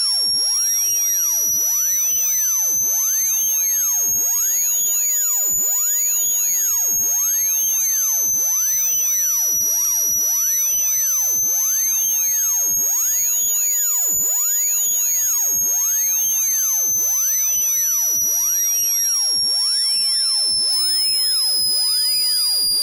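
Synthesized speaker-cleaner tone, a single high-pitched electronic whistle sounding steadily and slowly rising and falling in pitch. It is a water-eject frequency meant to vibrate a phone speaker's diaphragm and push trapped water out through the grille.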